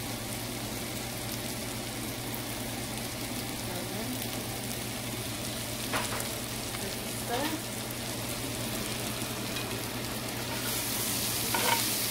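Diced Spam, bell peppers and onions sizzling in a cast iron skillet. There are a couple of light knocks midway; near the end the sizzle grows louder with sharper clicks as a spatula stirs the pan.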